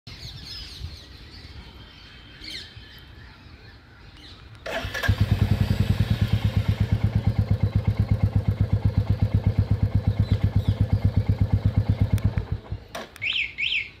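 Royal Enfield Classic 350's single-cylinder engine starting about five seconds in, idling with a steady, even thump, then cutting off. Just after it stops, two quick rising-and-falling alarm chirps sound from the bike's aftermarket remote security system.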